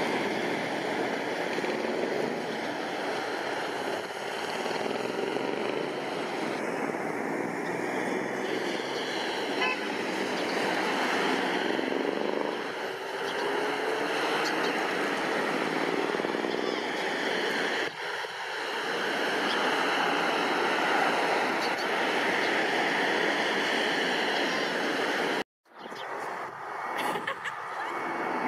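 Jet engines of an Airbus A320-family twin-jet airliner running as it passes low overhead on landing approach: a steady, loud rush of noise. Near the end the sound cuts out for a moment, and another approaching jet's engine noise comes in.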